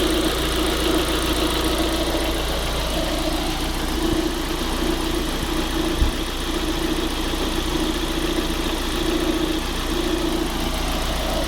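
Car engine idling steadily under the hood, with a low tone that comes and goes in short pulses and one sharp click about six seconds in.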